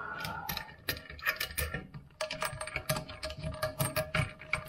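Ratchet wrench clicking rapidly and irregularly as it works the nut off a toilet's tank-to-bowl bolt, with a short pause about halfway through.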